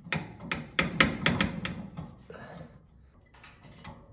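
A quick run of sharp taps and clicks from the old gas heater's pilot assembly and its thin metal tube being handled. The clicks bunch in the first two seconds, with a few more near the end.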